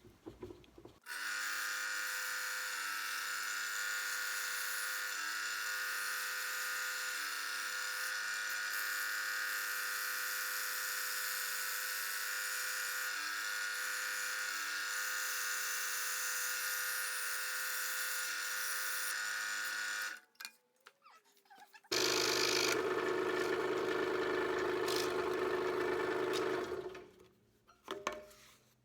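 Scroll saw running steadily as it cuts a slot in 1/8" Baltic birch plywood, stopping about twenty seconds in. After a short pause a louder, different noise follows for about five seconds.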